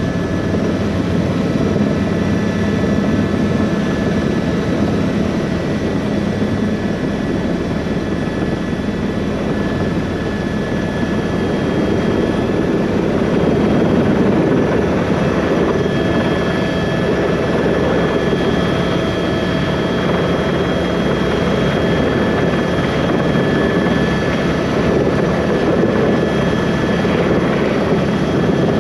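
Tour helicopter's turbine engine and rotor running steadily: a dense, even thrum with thin, steady high-pitched whine tones over it.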